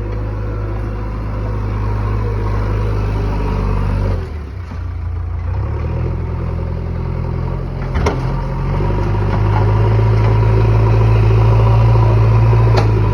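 JCB excavator's diesel engine running, its note dipping and changing about four seconds in, then running louder from about nine seconds. Two sharp knocks come through, one about eight seconds in and one near the end.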